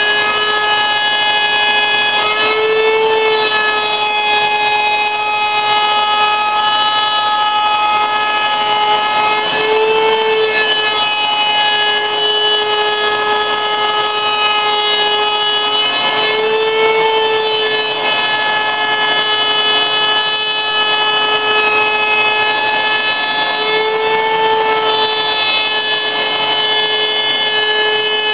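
Table-mounted Craftsman router running at full speed, a loud steady high whine with a brief rise in pitch about every seven seconds, as it mills wood for base molding.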